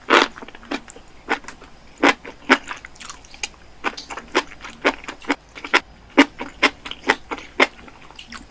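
Close-miked mouth chewing a burger: wet, smacking chews in a steady rhythm of two to three a second.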